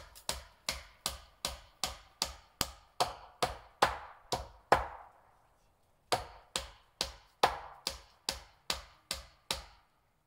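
Hammer driving nails into wood: a steady run of sharp strikes, about two and a half a second. About five seconds in they stop for a second or so, then a second run follows.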